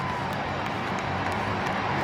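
Monster truck's supercharged V8 engine running at low revs as the truck rolls slowly, with arena crowd noise around it. The engine grows a little louder near the end.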